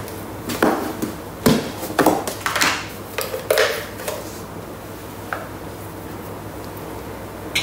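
Plastic kitchen containers and lids handled on a benchtop: several short knocks and clatters, the last about five seconds in, followed by a quieter stretch.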